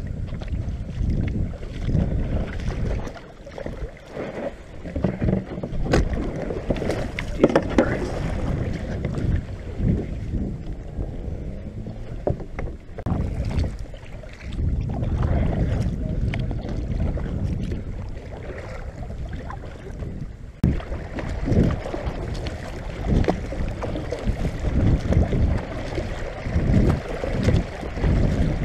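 Kayak being paddled: the paddle blades dip and splash in the water stroke after stroke, with wind rumbling on the microphone.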